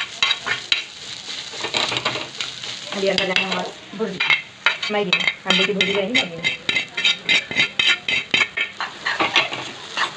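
Spatula scraping and tapping rapidly against a non-stick pan as scrambled egg is stirred and then mixed into cooked instant noodles. A few short voice-like tones come in about three to six seconds in.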